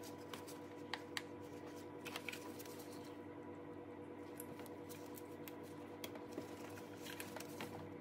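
Faint scattered clicks and taps of hands working on the fuel injector electrical connectors, most in the first couple of seconds and again near the end, over a steady low hum.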